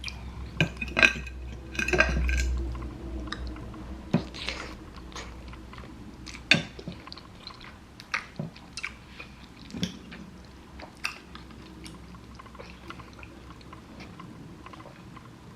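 Close-up eating sounds: jjajangmyeon (black bean noodles) being chewed, with scattered sharp clicks of utensils against dishes. The clicks are thickest in the first few seconds and sparser later.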